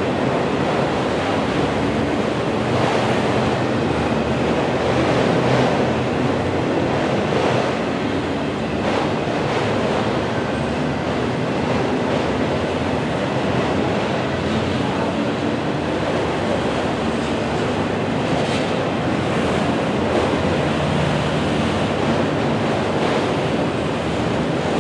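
Freight train of autorack cars rolling past, a steady noise of steel wheels on the rails.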